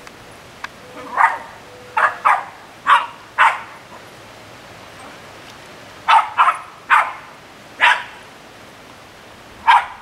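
Small terriers barking up a palm tree at a squirrel: about ten short, sharp barks in two bunches, over a steady hiss of rain.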